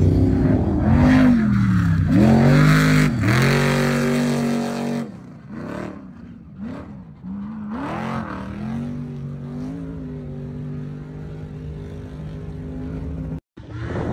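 Off-road race truck engines revving hard as the trucks drive past, the pitch swinging up and down with throttle and gear changes. Loud for the first few seconds, then quieter, more distant engine runs with the same rising and falling pitch; the sound cuts out for a moment near the end.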